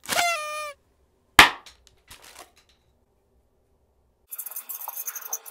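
A paper party blower tooted once, a short note that dips in pitch and then holds, followed about a second later by a single loud sharp crack. From about four seconds in, a felt-tip marker scratches and squeaks across notepad paper.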